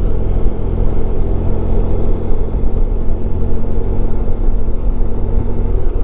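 1994 Honda ST1100's V4 engine running at a steady low cruising speed, heard as an even low drone together with riding noise.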